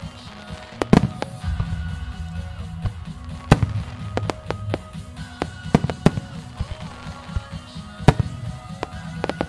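Aerial firework shells bursting in a rapid, irregular series of loud bangs, several close together at times, over music playing underneath.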